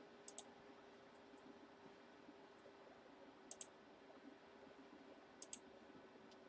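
Computer mouse clicking quietly: three quick double-clicks, spread a couple of seconds apart, over a faint steady hum.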